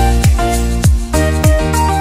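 Background music with a steady beat of deep kick drums that drop in pitch, about one every 0.6 seconds, under held synth notes.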